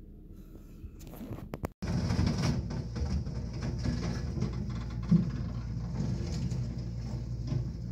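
Komatsu hydraulic excavator's diesel engine running while its bucket crunches and clatters through the wrecked speedboat and demolition rubble, with a sharp knock about five seconds in. It grows louder from about two seconds in.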